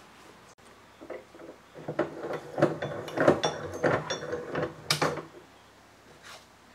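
Quick-release vise of a DeWalt DW872 metal-cutting saw being worked by hand: a run of metallic clicks and rattles from the lever and spring-loaded screw, ending in a sharper click about five seconds in.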